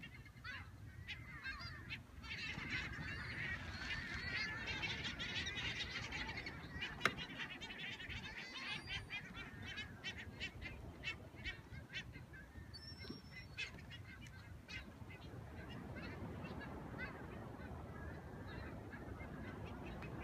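A flock of seabirds calling over the sea: many short, high calls overlapping, densest in the first third and thinning out later, over a low steady rumble. A single sharp click comes about seven seconds in.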